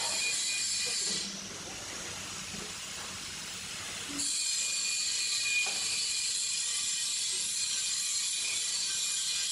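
Large bipedal humanoid robot walking: a steady high mechanical hiss with a faint whine from its drive. The hiss drops away about a second in and comes back about three seconds later, and there is a single short knock a little after that.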